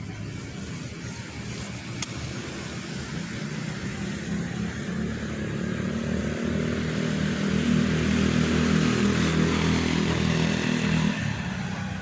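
A motor vehicle's engine running as it passes, the hum growing louder over several seconds and then dropping away about eleven seconds in.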